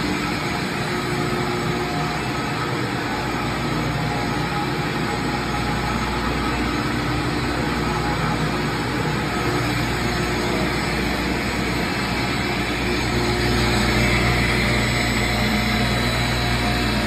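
AMFEC 510 paddle blender running, its paddles turning through a batch of ground meat: a steady mechanical drone with a low hum, slightly louder near the end.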